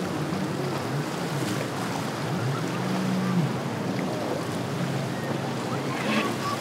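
Boat engines running through rough inlet waves, their low hum wavering in pitch, under a steady wash of breaking water and spray.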